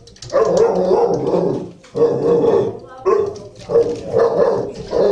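Shelter dogs barking loudly in repeated bouts, about six in a row, each up to a second long.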